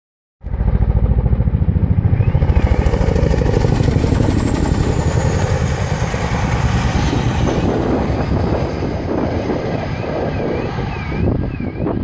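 Boeing CH-47 Chinook tandem-rotor helicopter flying low past: a loud, fast, heavy rotor thudding with a high turbine whine that falls in pitch as it goes by. A car alarm warbles up and down behind it.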